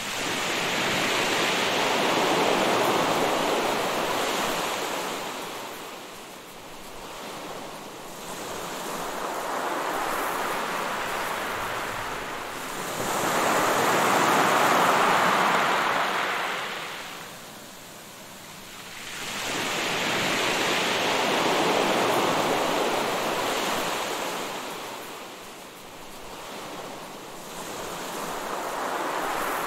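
Ocean surf: waves washing in and drawing back, swelling and falling away every several seconds.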